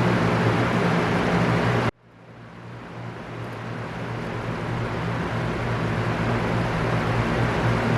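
Electric fan running with a steady whooshing rush over a low motor hum. About two seconds in, the sound cuts out abruptly, then slowly fades back up to full over the next few seconds.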